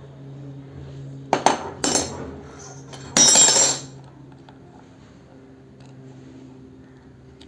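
Metal tools and parts clinking on an opened motorcycle starter motor as its carbon brush holder is unscrewed: two sharp clinks, then a louder harsh noise lasting about half a second.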